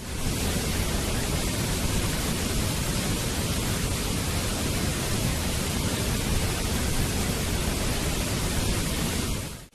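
Waterfall: a steady rush of falling water. It drops away for a moment near the end, then comes back.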